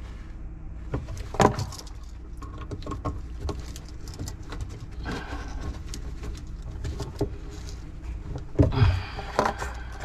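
Small metal clicks and scraping of hand tools working an electrical outlet: pliers squeezing the 12-gauge ground wire around a terminal screw, then a screwdriver tightening the screw, with rustling of work gloves. A sharper click comes about a second and a half in, and a cluster of louder handling noises near the end.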